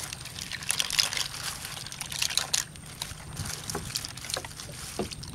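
Water sloshing and trickling in a plastic basin as hands rub and wash green mussels, the shells clicking against each other in irregular taps.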